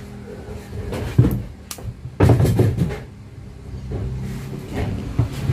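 Sharp plastic clicks and knocks from a pen-style lancing device being loaded and closed in the hands, with a cluster of clicks about two seconds in, over a low steady hum.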